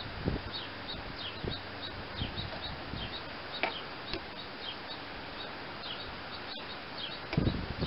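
Birds chirping steadily in the background, short high falling notes a few times a second. Under them come light knocks and rustling from hands working wires and pliers against the tractor's sheet metal, with a louder knock just before the end.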